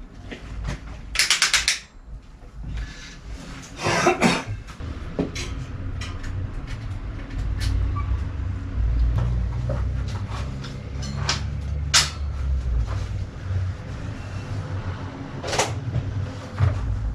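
Workshop handling noises: scattered knocks and clatters of tools and bike parts, with a rattling burst about a second in and a low rumble through the middle.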